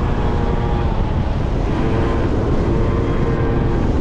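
Yamaha Zuma scooter's engine running under way, its pitch drifting slightly, over a strong wind rumble on the microphone.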